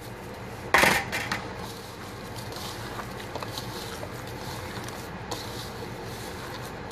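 Breadcrumbs poured onto raw ground beef and eggs in a mixing bowl, with a sharp loud noise about a second in, then hands squishing and kneading the meat mixture.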